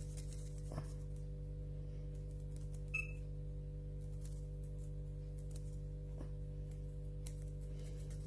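Scattered light clicks and taps of hands working on the plastic parts of a Dyson V7 vacuum's brush head, over a steady low hum. A brief squeak about three seconds in.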